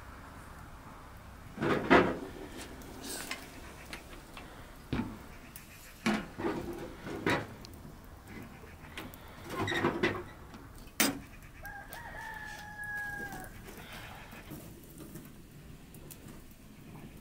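Knocks and clatter of a large metal pot and firewood being handled at a small sheet-metal wood stove. About twelve seconds in, a bird call is held steady for about a second and a half.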